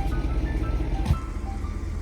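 Background music: a melody of short, separate notes over a steady low rumble, which drops a little after a brief thump about a second in.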